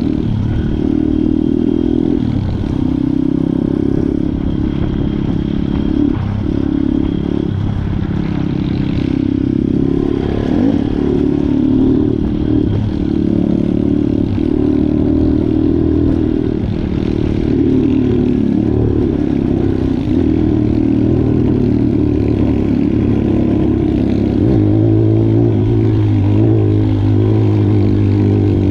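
Viar 150SF R pitbike's engine heard from on board, running under constantly changing throttle over a rough dirt trail, with rattling from the bike over the bumps. A steadier, lower drone comes in near the end.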